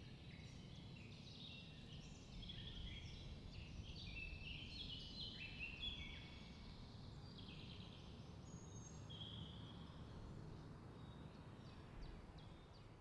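Faint bird chirps and twittering, many short high notes overlapping, over a low steady rumble.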